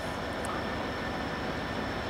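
Diesel locomotive approaching from a distance: a steady low drone of its engine and the moving train, with no horn or distinct events.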